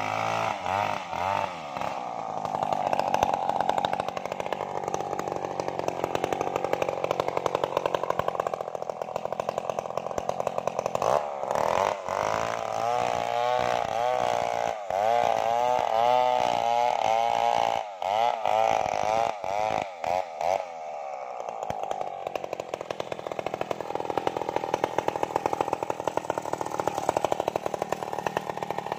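A home-built Stihl 070-type two-stroke chainsaw cutting through a felled trunk, its engine pitch rising and sagging as the chain bites into the wood. The revs swing quickly in the middle, dip briefly a little past two-thirds through, then pick up again.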